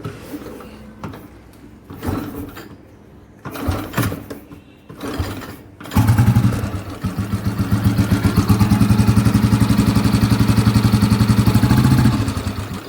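Motorcycle engine started about halfway in after a few knocks and clicks, then running with a fast, even beat that eases slightly near the end. The running engine carries the timing-gear clatter (gear lash) that the owner says has started again.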